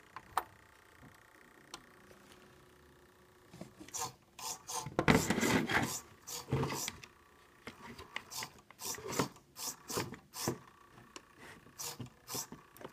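Scraping and rubbing with many sharp clicks and knocks, from a homemade RC snowmobile model and its drive train. A faint steady hum comes first, and the loudest stretch is about halfway through.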